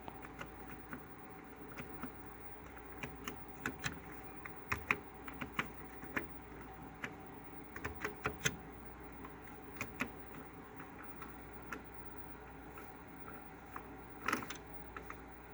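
Typing on a Commodore CBM 8032's keyboard: irregular key clicks, busiest in the middle and bunched again near the end, over a steady hum.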